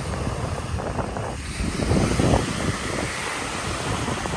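Small surf waves breaking and washing up a sandy beach, with wind rumbling on the microphone.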